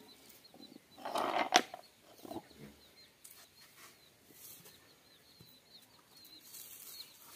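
Dry twigs and palm leaves rustling and snapping as she handles kindling beside a clay stove, with a louder burst about a second in that ends in a sharp crack. Small birds chirp faintly in the background.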